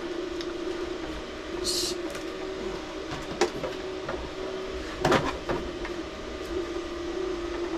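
A large 3D-printed plastic suit piece being handled and set down: a few sharp knocks of plastic, the loudest about five seconds in, with a short hiss near two seconds in, over a steady background hum.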